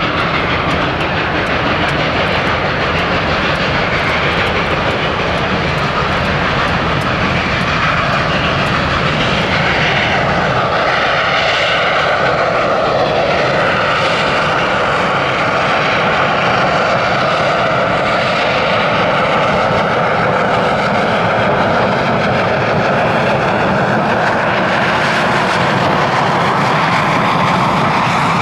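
Western Maryland Scenic Railroad 734, a 1916-built 2-8-0 Consolidation steam locomotive, working a freight train upgrade: a loud, steady roar of exhaust and rolling train with no distinct beat.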